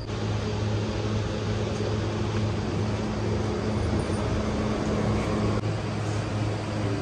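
A car running with a steady low hum; one part of the hum drops away about five and a half seconds in.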